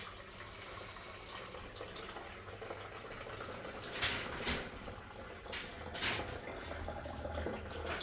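Water pouring from a Brita filter pitcher into a coffee maker's water reservoir, with two louder splashes about four and six seconds in.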